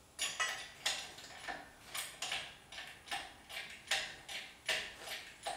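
Hydraulic engine hoist being pumped by hand to lift a pickup bed: the metal handle, hook and chain clink and rattle with each stroke, two or three sharp clatters a second.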